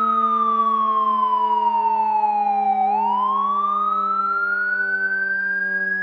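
Fire truck siren wailing: the pitch falls slowly for about three seconds, turns sharply at the bottom and climbs back up over the next three. A steady low drone runs underneath.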